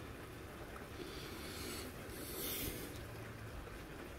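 Steady rainfall, a continuous even hiss. About two seconds in there is a short, louder rustle or rub close by.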